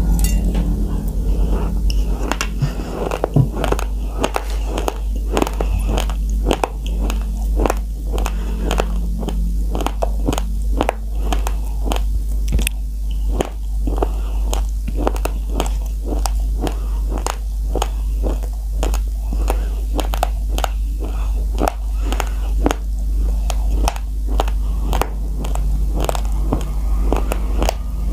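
Raw uncooked rice being crunched between the teeth as a mouthful is chewed: a steady run of sharp, gritty crunches over a constant low hum.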